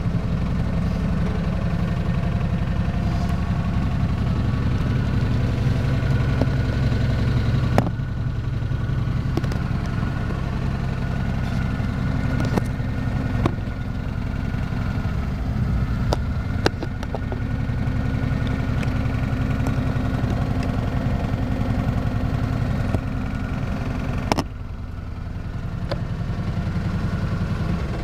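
Suzuki Carry DD51T kei truck's small three-cylinder engine idling steadily, heard from inside the cab. A few sharp clicks and knocks sound over it, and the engine note drops about 24 seconds in, then slowly builds back up.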